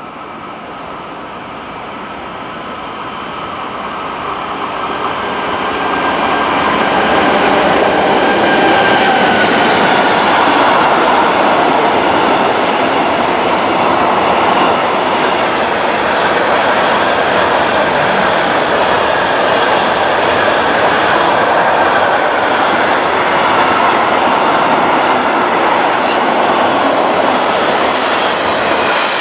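Freight train of tank wagons and container wagons approaching and running past close by on the station track. It grows louder over the first six or seven seconds, then holds as a steady noise of wagon wheels rolling on the rails.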